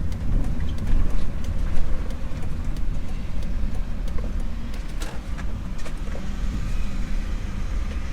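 Steady low rumble of a van being driven: engine and road noise.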